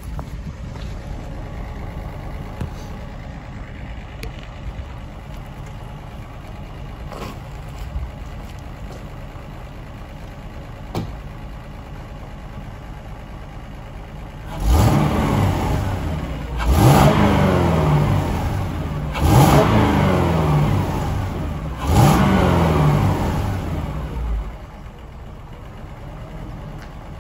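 LS V8 engine swapped into a Cadillac CTS, heard at the tailpipes, idling steadily, then revved four times about two to three seconds apart starting about halfway through. Each rev climbs quickly and falls back to idle.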